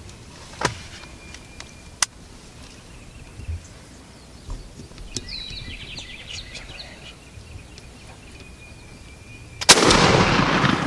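A single loud shotgun shot at a turkey near the end, echoing after the blast. Before it come faint bird calls and a couple of small clicks.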